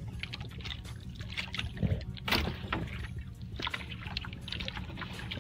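Water lapping and splashing against the hull of a small outrigger fishing boat, over a steady low rumble, with scattered small knocks. There is one louder knock a little over two seconds in.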